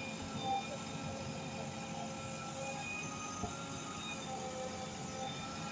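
JCB backhoe loader's diesel engine running steadily while the backhoe arm works the bucket through the soil, with one light knock about three and a half seconds in.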